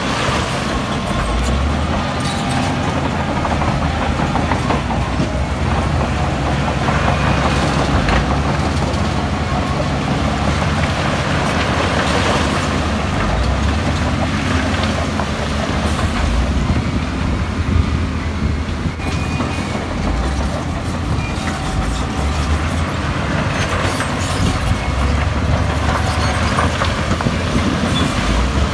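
Steady din of heavy construction machinery: a crawler bulldozer's diesel engine working under load as it pushes soil and rock, with a wheel loader and a dump truck running nearby.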